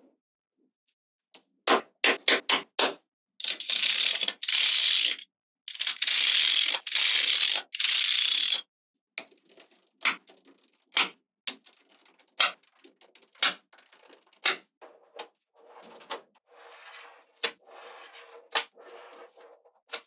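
Small magnetic balls clicking as they snap onto a slab of magnetic balls: a quick run of clicks, two longer stretches of dense rattling, then single sharp clicks about once a second.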